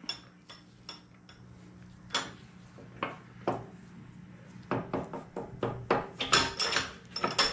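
Light metal clinks and taps of steel sockets and a rocker arm being handled and set in a bench vise to press a bronze trunnion bushing in, a few at first and more frequent in the second half.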